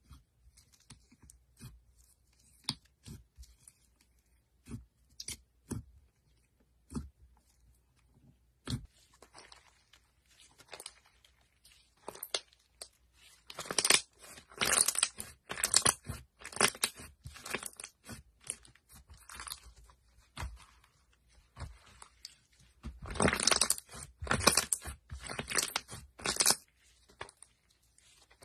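Hands squishing, poking and stretching slime: scattered sharp clicks and pops at first, then dense crackling and crunching in two long stretches, one around the middle and a louder one near the end.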